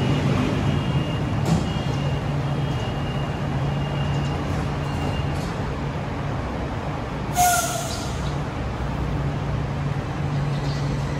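Bombardier Innovia APM 300 people-mover standing at the platform with a steady low hum, and a short sharp hiss of released air about seven seconds in.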